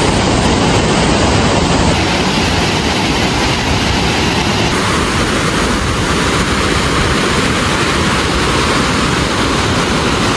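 Snowmelt waterfall rushing steadily and loudly, an even hiss of falling water.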